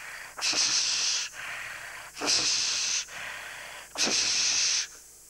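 A man imitating a handsaw with his mouth: rhythmic hissing strokes, each about a second long, a louder, harsher stroke alternating with a softer one like the push and pull of the blade.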